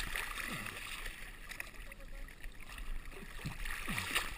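Sea water sloshing and lapping against a camera held at the surface, with a few short gurgles that drop in pitch.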